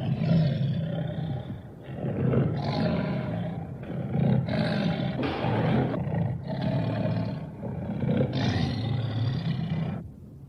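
Feline monster sound effect: a string of about six rough roars, each lasting a second or two, that stops abruptly near the end.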